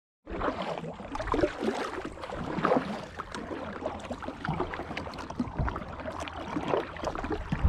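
A kayak being paddled: the paddle splashing and dripping in the water, with water gurgling along the hull and scattered small knocks and clicks.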